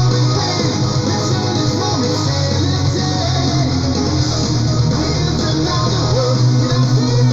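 Melodic metal song playing, with electric guitars and bass sustaining low notes that change every second or two.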